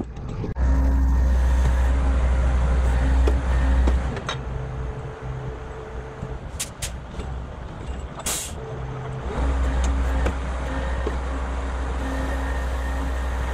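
Diesel engine of a crane truck running steadily, easing off for several seconds in the middle, during which three short sharp hisses sound.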